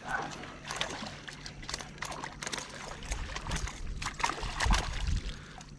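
A small hooked trout being landed and handled at a kayak: irregular splashes, clicks and knocks of the fish, water and gear, with a low rumble in the middle.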